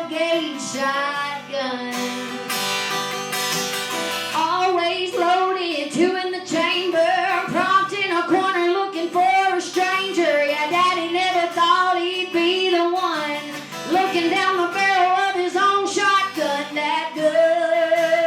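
A woman singing over an acoustic guitar. The guitar plays alone at first, and the voice comes in about four seconds in with long, wavering sung notes.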